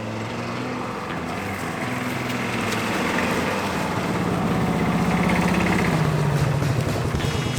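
An engine running steadily with rapid even firing pulses, growing louder over the first five seconds or so.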